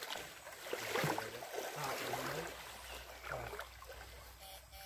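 Someone wading through a shallow river, with water sloshing and swirling around the legs. Faint voices are heard in the background.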